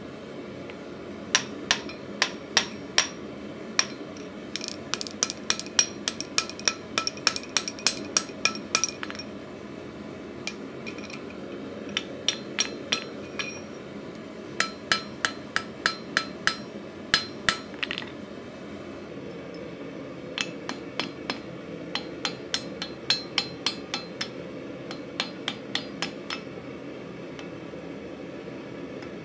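Hand hammer striking red-hot mild steel on an anvil and a cone mandrel, in several runs of quick blows with short pauses between, the steel and anvil ringing with each blow as the ring of a bottle opener is shaped.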